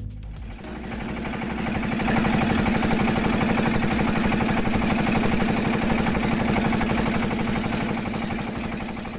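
Fishing boat's engine running steadily, with a strong even drone. It builds up over the first two seconds and starts to fade near the end.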